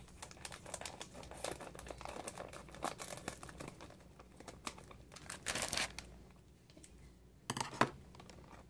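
Plastic fish-shipping bag crinkling and crackling as it is handled and cut open at the knot with scissors, with irregular crackles, a louder rustle about five and a half seconds in and a sharp crackle near the end.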